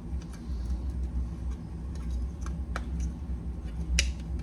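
Light clicks of seat belt buckle parts being handled as the buckle is taken apart: several faint clicks and a sharper one near the end, over a steady low hum.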